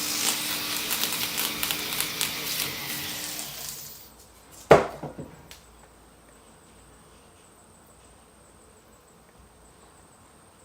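A buzzing, scratchy tool noise with a steady hum underneath stops about four seconds in. A single sharp knock with a short ring follows, then faint room tone.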